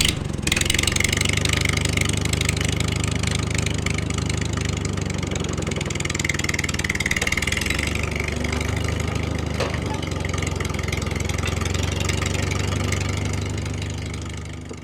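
Engine running at a steady idle, which fades out near the end.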